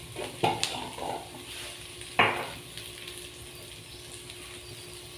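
Taro stems frying in a little oil in a wok, with a steady sizzle. A metal spatula knocks and scrapes against the pan a few times in the first two seconds or so as turmeric is stirred in.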